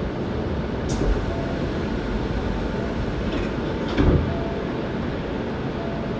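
Hankyu 7300 series electric train running between stations, heard from inside the car: a steady rumble of wheels on rail with two sharp knocks, about one and four seconds in, the second the louder. The car is one singled out for its unusual running noise.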